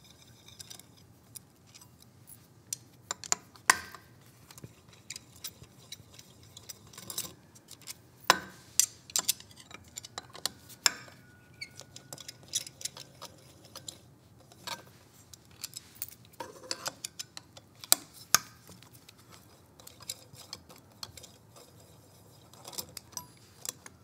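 Light metallic clicks and clinks, scattered and irregular: a hex key and the steel socket head cap screws that hold the actuator's motor down, being loosened and drawn out. The sharpest clicks come about 4, 8 and 18 seconds in.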